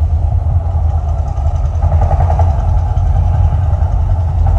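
Loud, steady deep rumble of the Mirage volcano show's eruption, played over the attraction's sound system, with a lighter crackling layer above it.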